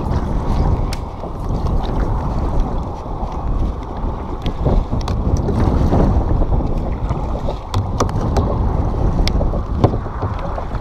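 Kayak being paddled with a double-bladed paddle, the blades dipping and pulling through the water, under steady wind rumble on the camera microphone. Several sharp knocks and splashes stand out, about a second in and again from the middle on.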